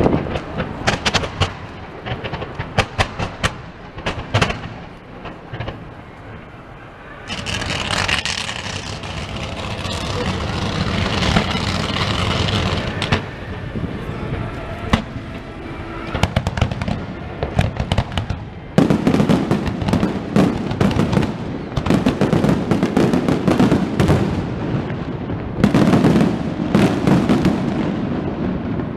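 Fireworks display: rapid crackling and popping from bursting shells. The crackling thickens into a louder, denser spell with low bangs over roughly the last ten seconds.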